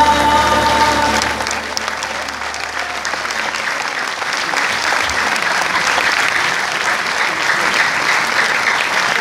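The song's last held note ends about a second in, and audience applause follows and continues.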